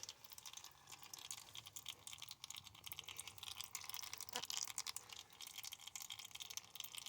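Faint, irregular clicking and scraping from a 23 mm socket and wrench working the drain plug on an old power steering pump.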